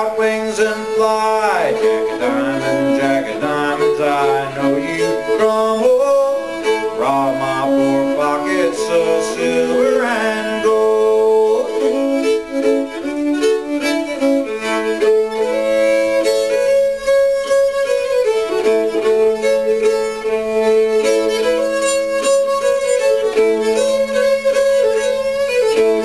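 Solo old-time fiddle playing a tune, bowed continuously, with a steady low note held under the melody for much of the time.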